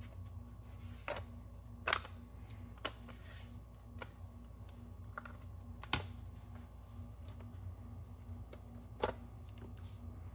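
Scattered sharp plastic clicks and taps from a Dell XPS 12 laptop's casing as it is handled and pressed along its edges, about half a dozen separate clicks, the loudest about two, six and nine seconds in.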